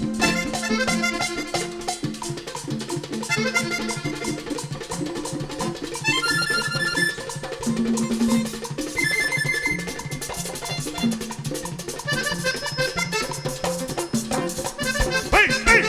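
Live vallenato band playing an instrumental break: accordion melody in repeated phrases over bass and Latin percussion.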